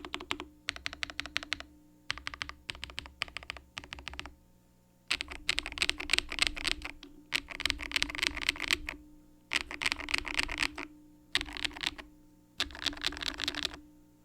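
Redragon Flekact Pro (K708) gasket-mounted mechanical keyboard with Leopard L linear switches being typed on in quick bursts of keystrokes, with short pauses between. The typing gets louder about five seconds in.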